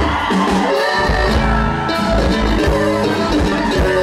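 Live norteño band playing, with a bajo sexto strumming over bass and a steady beat.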